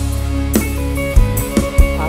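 Live mor lam band playing an instrumental passage: held chords and a steady bass line, with a drum hit about every two-thirds of a second.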